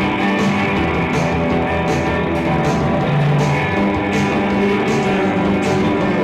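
Live rock band playing loudly: guitar and drums with a steady beat.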